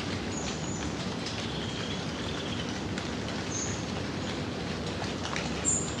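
Steady rain falling, a continuous even patter of drops. Faint, short, high bird chirps come now and then, with the loudest brief sound near the end.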